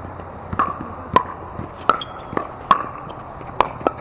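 Pickleball rally: about seven sharp pops of paddles striking the hollow plastic ball, roughly every half second and coming faster near the end as the players volley at the net.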